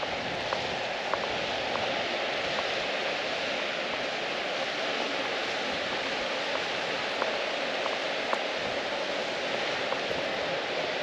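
Steady rushing of a rocky mountain stream, with faint light ticks now and then.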